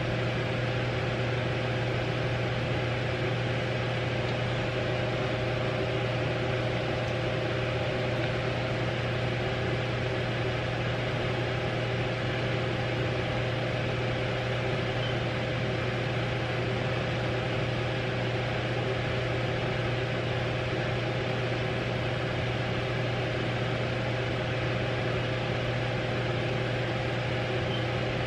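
Steady hum of a running appliance: a constant low drone with a fainter higher tone over an even hiss, never changing.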